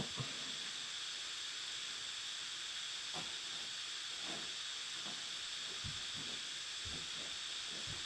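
Steady hiss of room tone and recording noise, with a few faint, soft low thumps.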